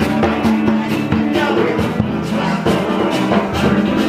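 Loud live band music with drums and a steady beat, and a singer on a microphone.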